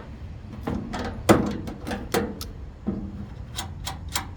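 Hand tools and metal parts knocking together: about ten sharp clanks and clicks at uneven spacing, the loudest about a second and a half in.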